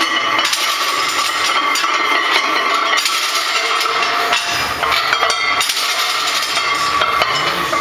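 Metal gym weights clanking and clinking again and again during a lift, with a ringing metallic tone beneath the knocks.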